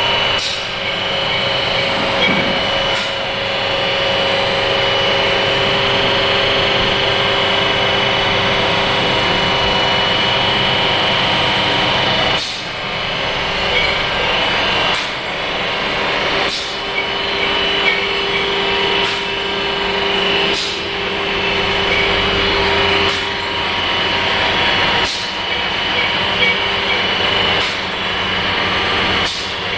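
Twin-spindle CNC vertical turning lathe running: a steady mechanical hum with a high whine over it, and sharp clicks every two seconds or so from about halfway through.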